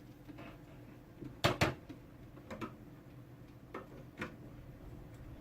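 A few light knocks and clicks of small tools and parts being handled on a workbench, the loudest a quick double knock about one and a half seconds in, over a steady low hum.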